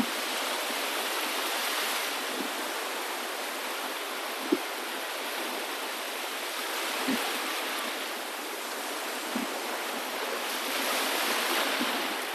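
Steady rushing water with no voices or music, swelling twice, with a few soft low knocks.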